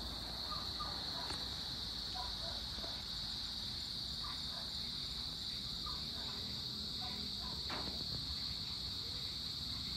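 Steady dusk insect chorus: one continuous high-pitched trill that does not vary, with faint short chirps scattered through it and a low background rumble.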